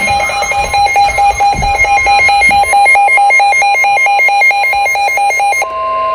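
Emergency Alert System broadcast alert tone: a fast electronic warble flipping between two pitches several times a second, switching to a steady two-note tone about a second before the end.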